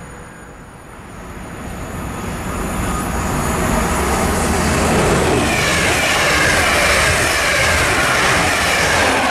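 Double-deck passenger train approaching at speed and running through close by. The rail noise swells from faint to loud over the first few seconds, then holds steady as the coaches rush past.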